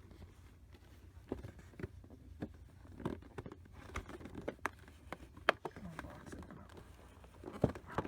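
Irregular clicks, taps and rustling from a collectible figure's plastic packaging being handled while the tape holding the figure in is worked loose. A sharp click stands out about halfway through, and another near the end.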